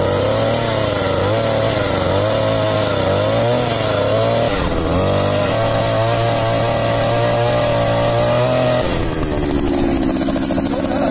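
Two-stroke petrol engine of a handheld earth auger (Master MS-630) running hard as the auger bores into soil, its pitch wavering with the load and dipping briefly about halfway. Near the end the engine drops to a lower, steady speed as the bit is lifted out of the hole.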